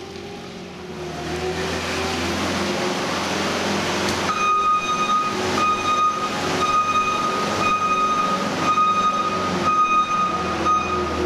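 Skid-steer loader's diesel engine running and revving under load. From about four seconds in, a high-pitched reversing alarm beeps about once a second over the engine as the machine backs up.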